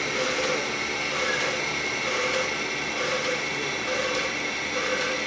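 Live steam model of a Denver & Rio Grande Western locomotive standing under steam: a steady hiss with a constant high ringing note, and a soft beat about once a second from its steam-driven air pump working.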